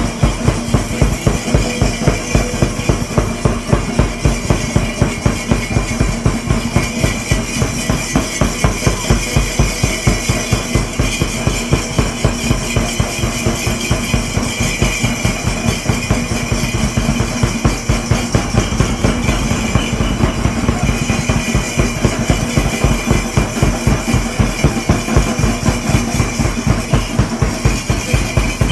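Loud music with a fast, even drum beat driving it throughout.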